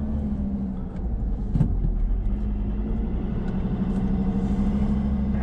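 Engine of a six-wheel 4x4 truck running steadily as it drives along a desert sand track, with a sharp knock about a second and a half in.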